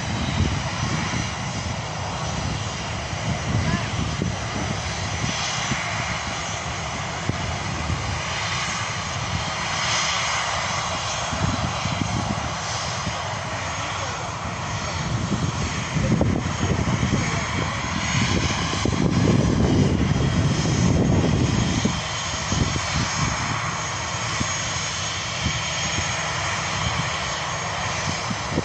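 Airbus A320-family jet airliner taxiing with its turbofan engines running: a steady high whine over a low rumble that swells louder for several seconds past the middle.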